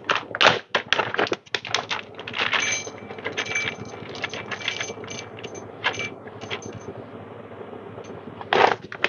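Whole coffee beans rattling and clicking as they are poured from a crinkling coffee bag into a dosing cup on a scale, weighing out a dose. The rattle is dense for the first seven seconds or so and then thins out.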